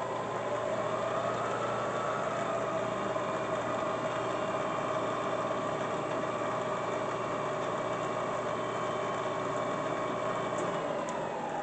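Bridgeport Series I 2 hp vertical mill spindle running in low range: a steady mechanical whine that climbs a little in the first two seconds, then holds. Near the end the pitch falls as the spindle slows down.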